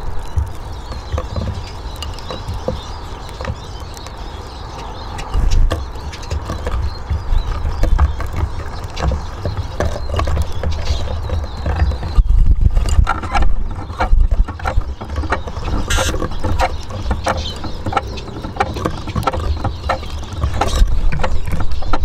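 Eurasian siskins pecking and hopping at a wooden bird table and seed dish: a scatter of small irregular taps and clicks over a steady low rumble.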